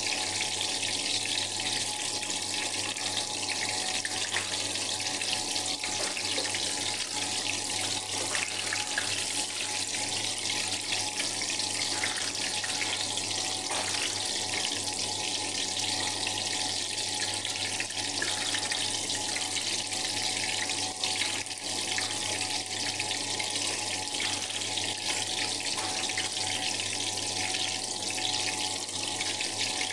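Eggplant slices sizzling and crackling steadily in hot oil in a frying pan, with a faint steady hum underneath.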